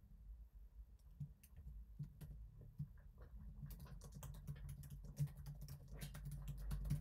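Faint computer keyboard typing: a few scattered keystrokes at first, then a quick run of keystrokes from a little past halfway.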